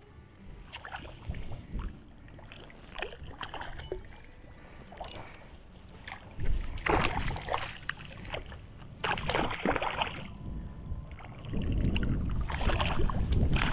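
A hooked wild brook trout splashing at the surface as it is reeled in to the bank, in several bursts from about halfway through, with small clicks before and a low rumble under the last splashes.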